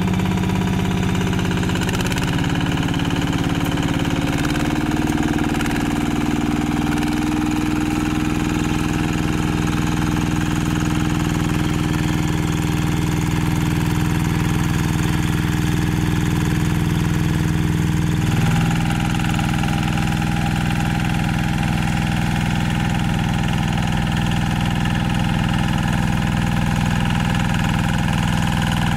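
Single-cylinder diesel engine of a Yanmar two-wheel walking tractor running steadily under load while tilling soil. Its note shifts abruptly about two-thirds of the way through.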